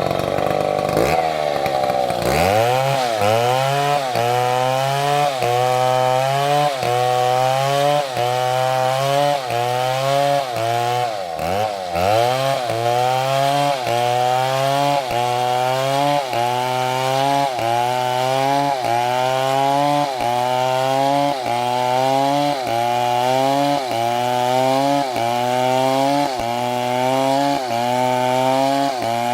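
Two-stroke STIHL MS720 chainsaw cutting wood. After a change in engine note in the first two seconds, the engine pitch dips and recovers in an even rhythm of about once a second as the saw works through the cut.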